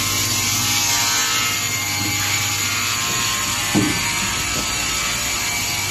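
Multi-blade log saw running with a steady mechanical hum and whine, with one short knock a little before four seconds in.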